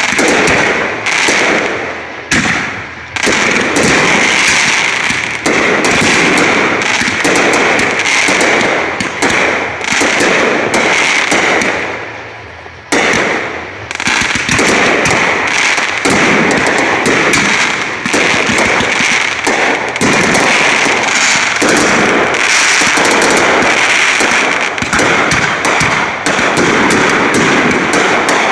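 Fireworks going off in dense, rapid crackling bangs, with a short lull about twelve seconds in before the crackling starts again.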